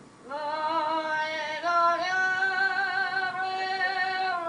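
Parrot singing two long held notes, the second a step higher and held for nearly three seconds.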